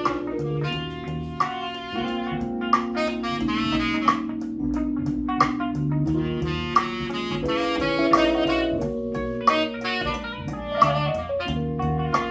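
1970s Ultralinear M15 two-way bookshelf speakers, each with a 4.5-inch woofer and 1-inch tweeter, playing a jazz track led by saxophone, with guitar and drum kit, at a steady level. The owner finds these speakers severely lacking in bass.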